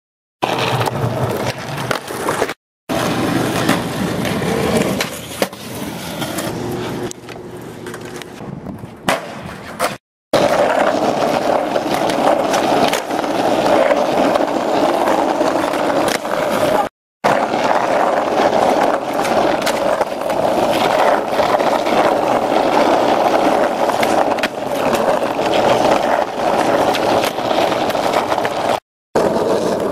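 Skateboard wheels rolling over rough asphalt, a steady gritty roll, broken by sharp knocks of the board hitting the ground. It cuts out briefly three or four times between clips.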